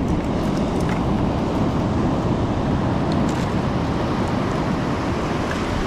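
Steady roar of ocean surf breaking on the beach, with wind buffeting the microphone and a few faint clicks.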